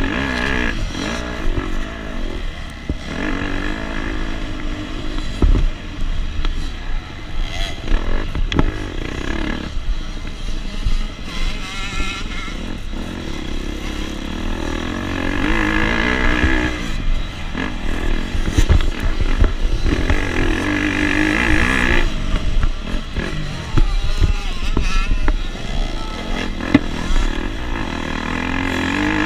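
KTM 250 SX two-stroke dirt bike engine racing, its pitch rising and falling again and again as the throttle is opened and shut.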